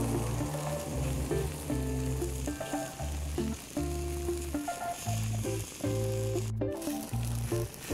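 Grated potato and mozzarella sizzling as they fry in margarine in a nonstick frying pan, with a metal spoon pressing the mixture down. Background music with held, stepping bass notes plays over it and cuts out briefly about six and a half seconds in.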